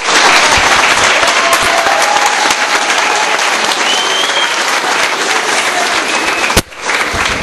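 Crowd applauding with dense, steady clapping. Near the end it breaks off abruptly, then carries on more thinly.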